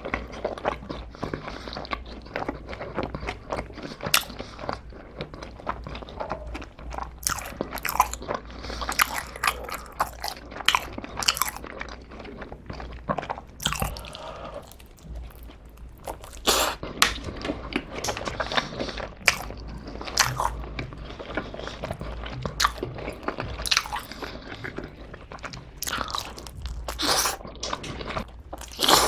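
Close-miked biting and chewing of pizza, with irregular sharp clicks from the mouth throughout.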